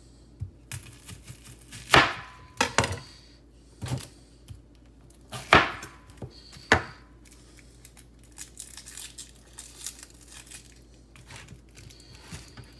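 Chef's knife cutting through an onion on a plastic cutting board, with several sharp knocks of the blade on the board, the loudest about two and five and a half seconds in. Later comes a softer crackle and rustle of the papery onion skin being peeled off by hand.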